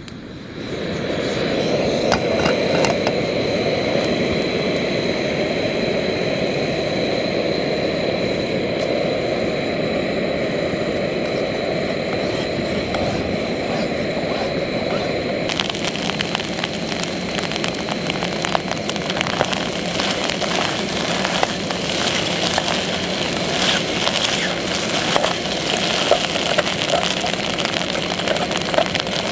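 A click as a screw-on canister gas stove is lit, then the burner's steady roar at full flame. About halfway through, a crackling sizzle joins in as eggs cook in the pot on the burner and are stirred with a spoon.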